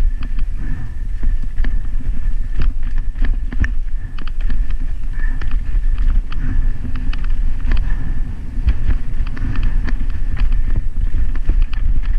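Mountain bike descending rocky singletrack: tyres crunching over loose stones, with irregular clattering and knocking from the bike and camera mount as it bounces over rocks, over a heavy wind rumble on the microphone.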